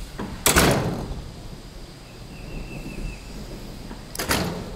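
A heavy door at a restroom building banging shut twice: once loudly about half a second in, and again near the end.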